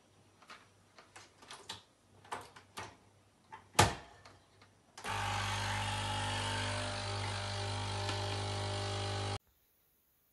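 A small capsule coffee machine being loaded: light clicks and handling, a sharp clack as the capsule lever is shut, then the pump runs with a steady buzzing hum for about four seconds before cutting off suddenly.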